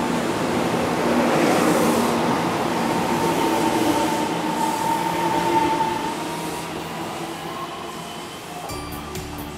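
Taiwan Railways EMU700 electric multiple unit departing, its cars rolling past with a loud rush of wheel and running noise and a steady high whine that fade after about six seconds. Music comes in near the end.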